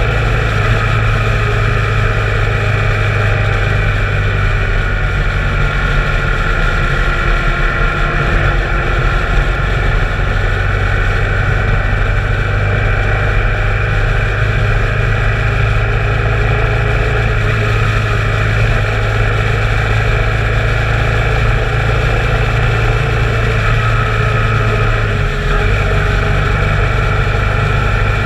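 Motorcycle engine running steadily at cruising speed, its pitch drifting slightly, heard from a camera mounted on the bike with rushing wind noise.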